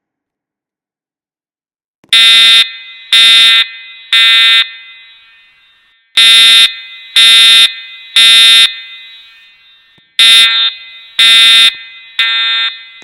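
EST voice-evacuation fire alarm sounding the temporal-three evacuation tone: three loud, buzzy half-second horn blasts a second apart, a short pause, then the next set of three, nine blasts in all. Each blast echoes and fades off after it, and the first set starts about two seconds in.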